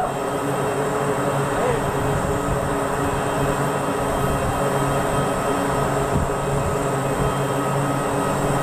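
Steady drone of aircraft engines running, several steady humming tones over an even rush.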